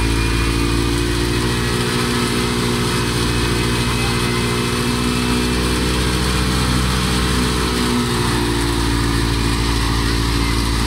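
Sattar wheat thresher running at a steady speed while threshing wheat, its drum and belt drive turning, with the engine that drives it: an even, steady low drone.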